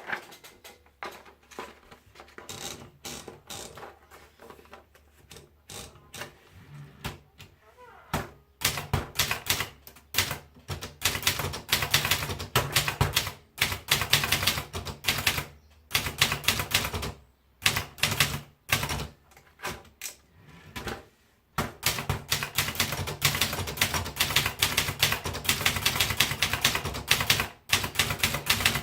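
Brother Deluxe 800 typewriter being typed on. For the first several seconds there are a few slow, spaced keystrokes. Then comes fast, continuous typing, broken by a few short pauses.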